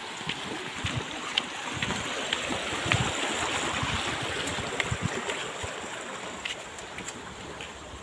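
Small irrigation stream rushing over a low drop, a steady watery hiss that swells for a few seconds in the middle, with scattered soft footsteps and clicks.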